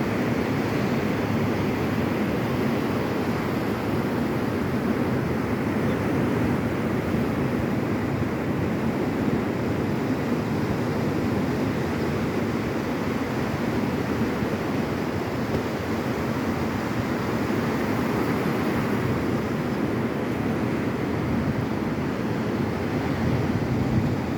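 Ocean surf rushing steadily onto a beach, with some wind noise on the microphone.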